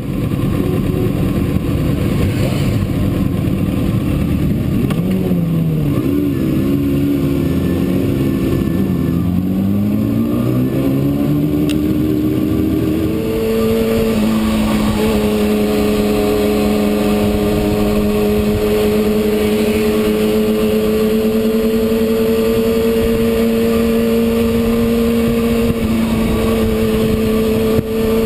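Kawasaki ZX-6R inline-four engine heard from on board while riding. Through the first dozen or so seconds the revs rise and fall through the gears, then hold at a steady pitch at cruising speed, with only brief dips. Wind and road noise lie under the engine.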